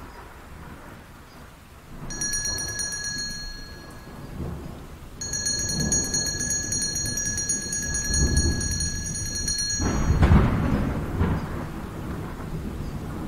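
Thunderstorm: low, rolling thunder over rain, swelling into a loud peal near the end. Twice, a high, steady ringing tone sounds over it, first for about two seconds, then for about four and a half.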